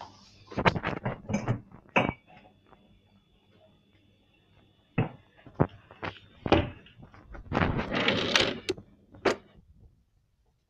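Handling noise of a phone held in the hand: irregular knocks, rubs and scrapes against the microphone, in two clusters with a quieter stretch between them.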